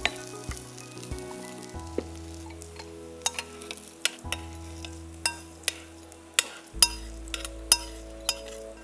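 Nonstick pan of roasted urad dal, curry leaves and garlic being scraped out into a glass bowl with a wooden spatula: a string of sharp clicks and scrapes, thicker in the second half, over light sizzling of hot oil.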